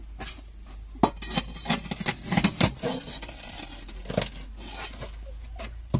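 A metal rod clinking and scraping against a ceramic squat toilet pan as it is pushed into the drain hole. There is a quick run of sharp knocks from about one to three seconds in, and another knock about four seconds in.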